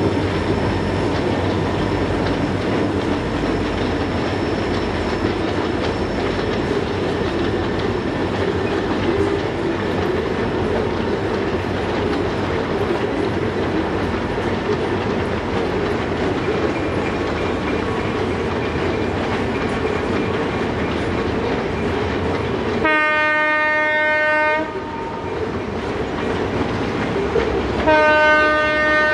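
Freight train boxcars rolling past with a steady clickety-clack of wheels on rail joints. Near the end come two blasts of the lead locomotive's Nathan M3 horn: a blast of under two seconds, then a second that starts just before the end.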